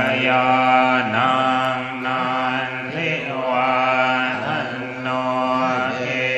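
A group of Theravada Buddhist monks chanting auspicious blessing verses in unison, many voices held on a steady low pitch.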